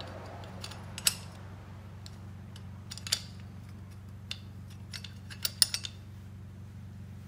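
Sharp metal clicks and clinks of hand tools and a cam-locking tool against an Evo 9 engine's cam gears while a timing belt is fitted. The clicks come about a second in, around three seconds in, and in a quick cluster around five and a half seconds, over a steady low hum.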